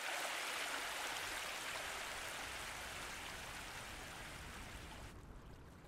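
Mountain stream rushing over boulders in a small cascade: a steady hiss of white water that slowly fades, turning duller near the end as its high hiss drops away.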